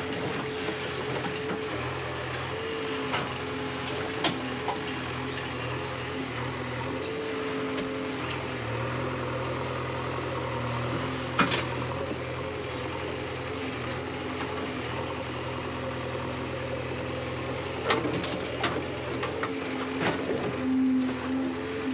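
JCB backhoe loader's diesel engine running steadily under load, heard from the operator's cab, with a hum whose pitch shifts as the backhoe is worked. A few sharp clanks stand out, the loudest about a third of the way in and another near the end.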